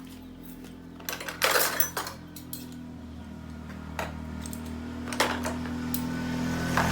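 Hand tools clinking and tapping against metal motorcycle parts: several sharp metallic clinks over a steady low hum.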